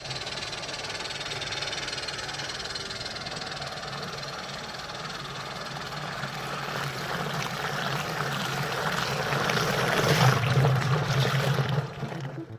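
A homemade 12 V washing machine's small electric motor running steadily, churning water. It grows louder toward the end and then cuts off suddenly.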